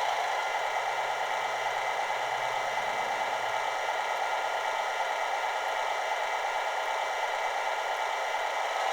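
Model diesel sound from a Soundtraxx Tsunami decoder, playing a Fairbanks-Morse opposed-piston prime mover through the locomotive's oval speaker. It runs steadily and throatily while being notched up in place, and a lower engine note fades out about three and a half seconds in.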